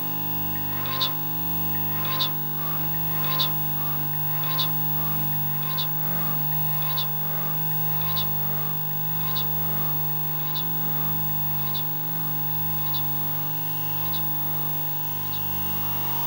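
Experimental electronic noise music: a steady drone with a low hum and several held tones. Over it a short, bright pulse repeats about every 1.2 seconds and fades out gradually toward the end.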